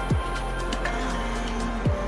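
Background music: held steady tones with a deep bass note that drops sharply in pitch twice, about a second and three-quarters apart.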